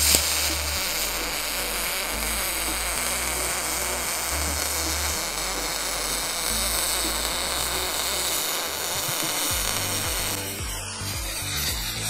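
Aluminium MIG welding with a spool gun: a steady hiss and crackle from the arc that breaks up about ten seconds in. Background music with a bass line plays underneath.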